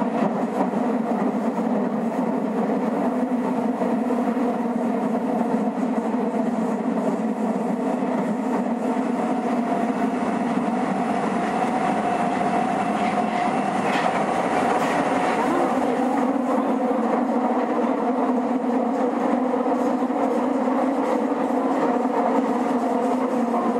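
Nagoya Municipal Subway 2000 series train, an IGBT-converted car, running between stations, heard from inside the car: a steady rumble of wheels on rail with a low hum and a faint higher tone that drifts up slightly about halfway through.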